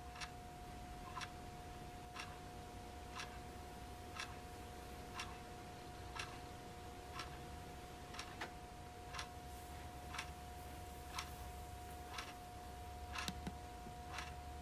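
Wall clock ticking steadily, about one tick a second, over a faint steady hum.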